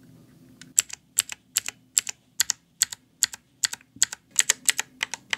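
Mechanical keyboard with clicky blue switches being pressed key by key, about two and a half strokes a second after a quiet first second. Each stroke gives a sharp double click.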